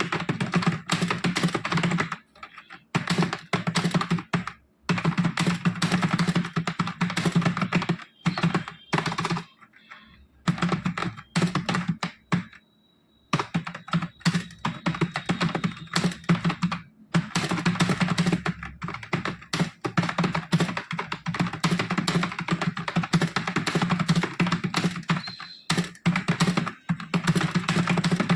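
Fast touch-typing on a computer keyboard at about 60 words per minute: a dense, steady stream of key clicks broken by a few short pauses, the longest about a second near the middle.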